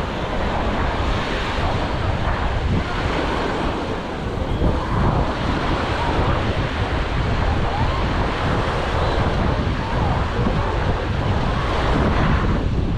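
Mediterranean surf washing onto the beach, with wind rumbling on the microphone.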